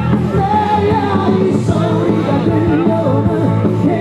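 Amplified pop band music with a lead singer: long held sung notes over a steady bass line.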